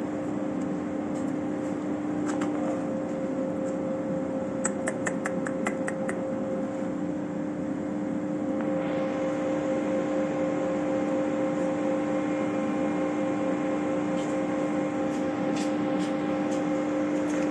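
A steady machine hum with a low drone throughout, and a quick run of clicks about five seconds in. A higher hiss joins the hum about halfway and stays, with a few more clicks near the end.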